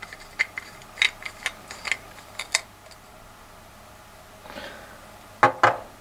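Small clicks and taps from handling a glass nail-polish bottle and its brush cap: a run of light ticks over the first two or three seconds, then two sharper clicks near the end.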